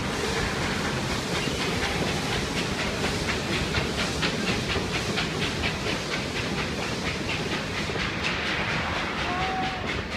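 Carriages of the Puffing Billy narrow-gauge heritage steam train rolling past over a timber trestle bridge, the wheels clicking over rail joints in a quick, even rhythm.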